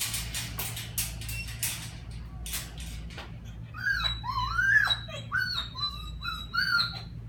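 A few sharp clicks and rattles, then a dog whining: several short rising-and-falling whines in the second half.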